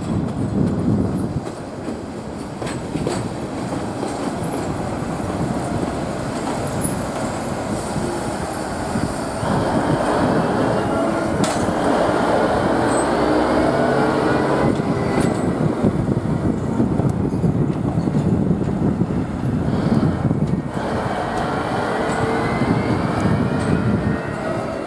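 DD512 diesel shunting locomotive running along yard track: steady engine noise with its wheels rolling on the rails, and a faint rising whine in the second half.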